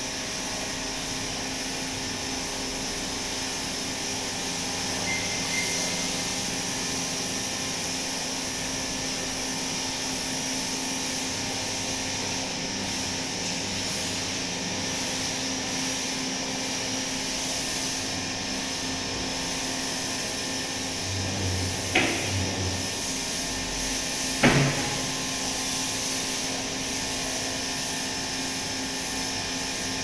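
A steady mechanical hum with several faint steady tones under it, from a running household machine. Two sharp knocks about two and a half seconds apart stand out late on, the second the louder.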